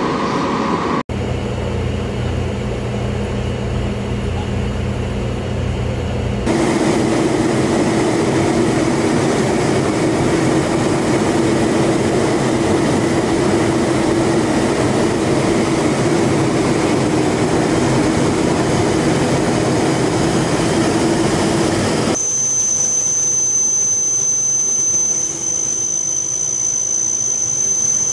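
A-29 Super Tucano's single Pratt & Whitney PT6A turboprop running in a steady drone, first from the airfield as the aircraft taxis, then from inside the cockpit in flight. The sound changes abruptly at cuts, and about 22 seconds in a steady high-pitched whine takes over from the lower drone.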